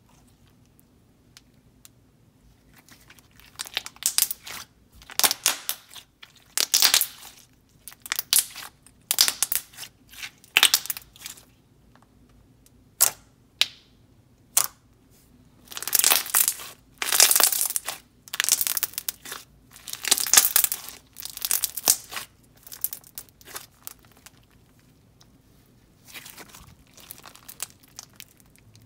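Thick, glossy premade slime (Elmer's Gue Stardust) being squished, folded and stretched by hand: bursts of sticky crackling and small air-bubble pops, coming in clusters about a second apart after a quiet start, with a short lull near the end.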